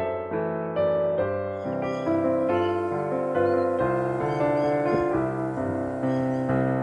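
Background piano music, sustained notes and chords changing about every half second.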